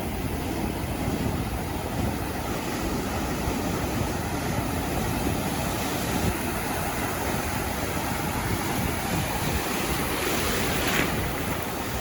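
Gentle ocean surf rolling onto a beach: a steady wash of waves, with one wave breaking and hissing up the sand a little louder near the end.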